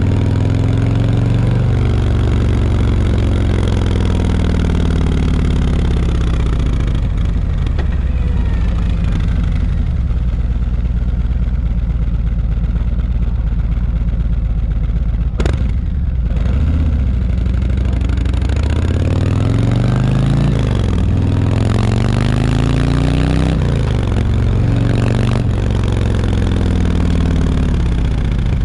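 Harley-Davidson Milwaukee-Eight V-twin on its stock exhaust, running under way while ridden: the engine note falls early on, then rises and drops several times in the second half as the bike accelerates and shifts gears. There is one sharp click about halfway.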